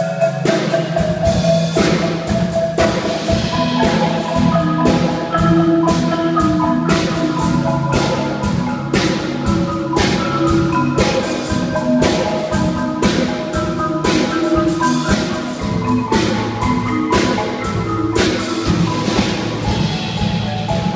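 Marimbas and other mallet keyboards of a drum corps front ensemble play a legato exercise together. The notes are struck in a steady, even rhythm over sustained low chords.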